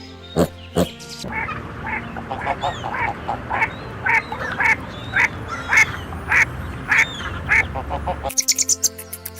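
Ducks quacking in a steady series of short calls, about two a second, over a background hiss. A music track with sharp beats plays for the first second, and another music track begins near the end.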